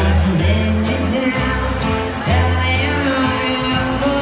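Live acoustic band playing: an upright double bass holding deep notes, acoustic guitar, and singing.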